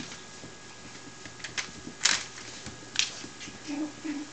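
Puppies scrabbling and playing on a linoleum floor: scattered light clicks and scuffs of claws and paws.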